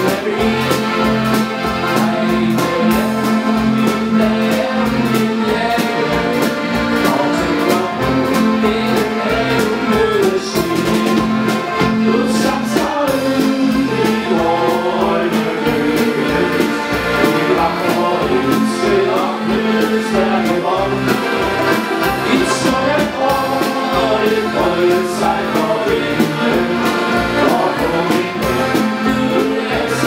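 Live accordion band playing a tune, several accordions together with guitars and a drum kit, at a steady loud level throughout.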